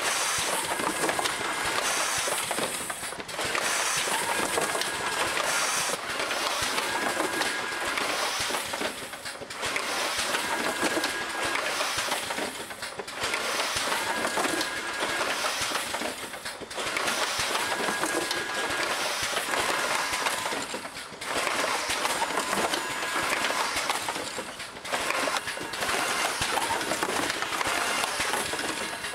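Bag-in-box case-packing machinery running continuously, a dense mechanical noise that dips briefly about every four seconds as the machine cycles.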